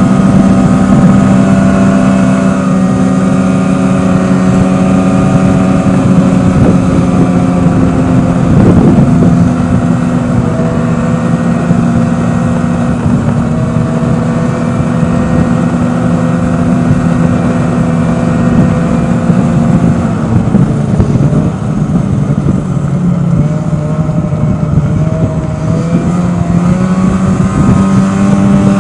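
Snowmobile engine running steadily under way on a packed snow trail. Its pitch drops a little about two-thirds of the way through and climbs again near the end as the rider eases off and speeds back up.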